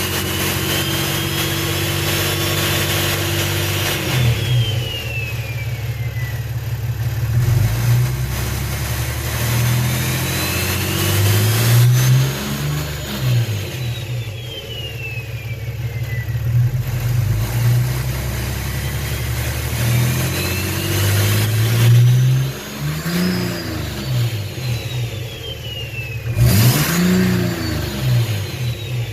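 BMW 330d's M57 straight-six diesel with a large BorgWarner S360V turbo, revved up and let down three times. Each time a loud turbo whistle rises as the turbo spools and slides back down as it spins down, with off-throttle compressor surge fluttering in the engine note. A sharp crack cuts through twice, louder near the end.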